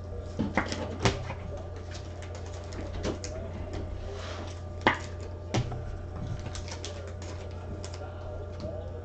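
Irregular sharp clicks and taps from handling trading cards and card packs on a table, over a steady low hum; the loudest clicks come about a second in and about five seconds in.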